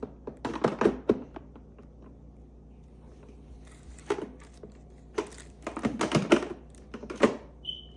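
Irregular clicking, knocking and crinkling as plastic coffee-maker parts and packaging are handled, in several bursts, with a short high beep near the end.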